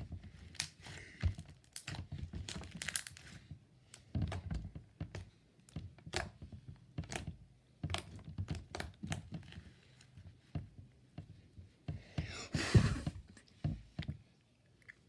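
Slime being squished, stretched and pressed by hand, giving a string of sharp pops and clicks as air bubbles burst, with one louder squelching pop about three-quarters of the way through.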